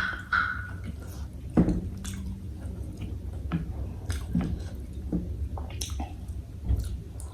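Close-up chewing of spicy bakso meatball soup, with scattered wet clicks and soft bites.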